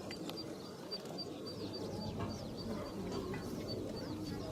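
Quiet outdoor crowd murmur with small birds chirping and a short high pip repeating evenly about three times a second.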